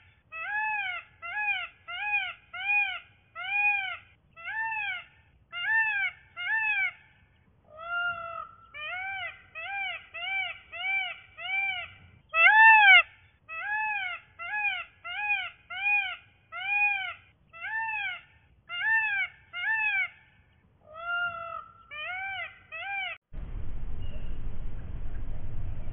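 An animal mewing over and over in short, high calls, about one or two a second, each rising and falling in pitch. Near the end the calls stop and a steady low rumble of background noise takes over.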